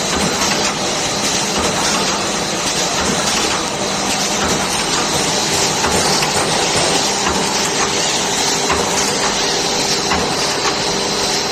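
Plastic bag cutting machine running, a steady mechanical noise with a constant hum and faint scattered clicks.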